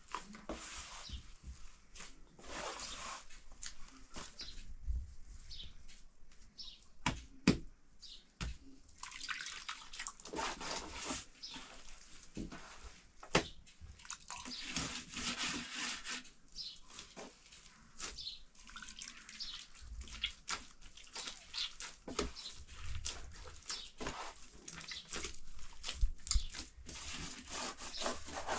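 Hands kneading wet bread dough in a steel basin: irregular squishing and slapping, with water sounds as the hand is dipped in a bowl of water, and a few sharp knocks, the loudest about seven seconds in.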